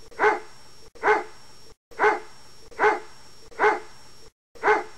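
A dog barking six times at an even pace, single barks a little under a second apart.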